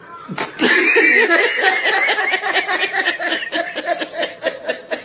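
A person laughing hard, a rapid run of high-pitched "ha" sounds, about six a second. It starts loudly about half a second in and weakens near the end.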